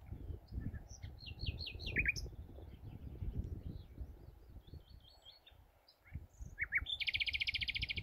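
Common nightingale singing a series of varied phrases of slurred whistles and short repeated notes, ending near the close in a fast, loud run of rapidly repeated notes lasting about a second, over a low rumble.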